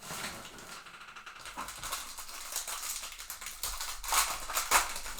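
Trading cards and their packaging being handled: quick rustling and light clicking, with a few louder strokes about four seconds in.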